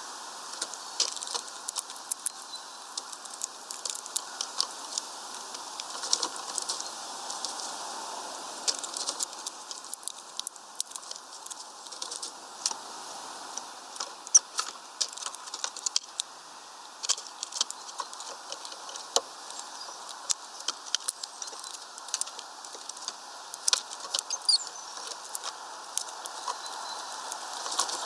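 Irregular sharp taps and clicks, a few a second and sometimes in quick clusters, of a small bird pecking at seed on a feeder, over a steady hiss.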